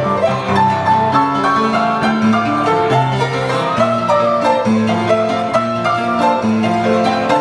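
Instrumental music: a melody of held notes over a steady accompaniment.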